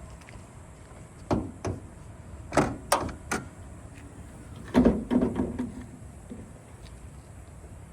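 Car hood being worked and shut on its new gas struts: a few sharp metal clunks, then a heavier thud with a short ring about five seconds in.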